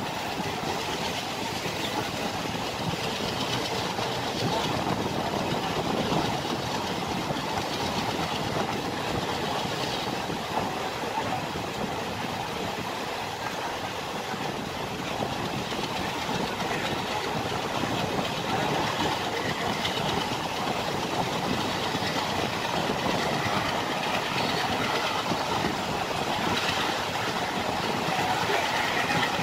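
Passenger train coach running along the track at speed, heard from an open window: a steady noise of wheels on rails and the moving coach, with no pauses.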